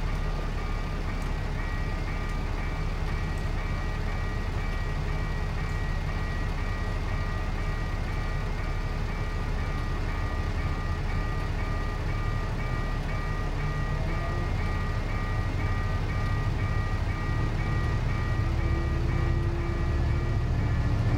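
Level-crossing warning bell ringing in a fast, even repeating pattern over a low engine rumble. Near the end the rumble swells as a diesel locomotive approaches the crossing.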